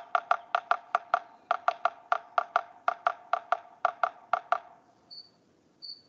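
Recorded drumming of a yellow-bellied sapsucker: quick taps on wood that break into an uneven, stop-and-start stutter, the irregular Morse-code-like rhythm typical of the species. The drumming stops about four and a half seconds in, and a few faint high notes follow.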